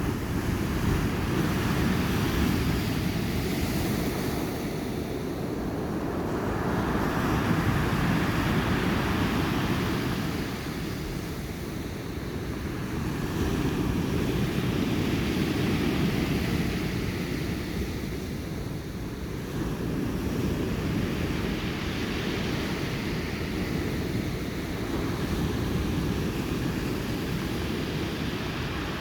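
Sea waves breaking on the shore, a steady surf wash that swells and falls back every six or seven seconds.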